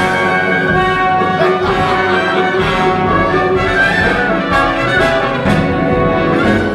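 Orchestral show-tune music in an instrumental passage, with brass playing over strings, and no singing.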